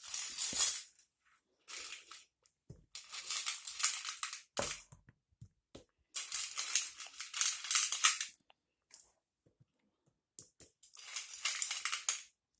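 Bag of chocolate mini eggs crinkling and rattling as it is handled, in four bursts with quiet gaps between.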